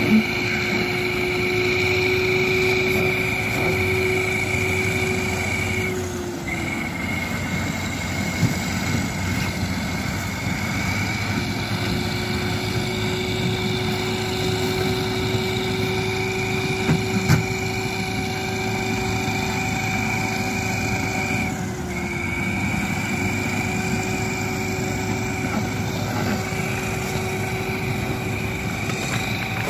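Heavy diesel engines running steadily under load as a wheeled tractor tows a loaded truck by a cable, with a steady high whine over the engine drone. The whine dips briefly about six seconds in and again near twenty-two seconds.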